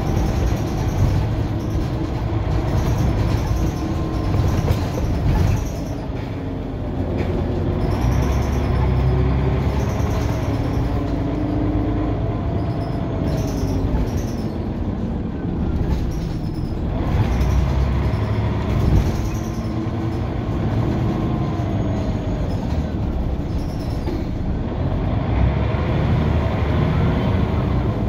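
Scania CN94UB OmniCity bus heard from inside the saloon while driving: a steady low engine rumble whose pitch rises and falls several times as the bus speeds up and slows.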